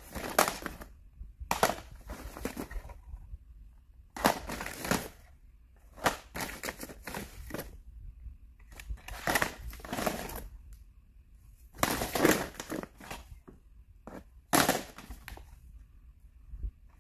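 Plastic DVD cases being pulled out of a woven plastic IKEA bag and handled: irregular bursts of bag rustling and case clacking, each about a second long, every second or two.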